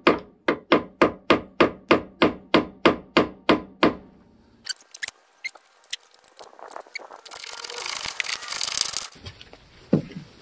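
Quick, even tapping, about four taps a second for roughly four seconds, as a tool knocks the new tailgate lift support's nylon bushing down into its mount to seat it. Then a few scattered clicks, a couple of seconds of scraping, and a single knock near the end.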